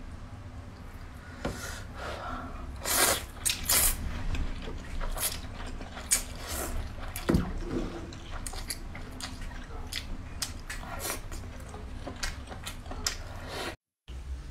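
Close-miked eating: slurping noodles and wet chewing, in a string of separate slurps and smacks, the loudest a pair of long slurps about three to four seconds in.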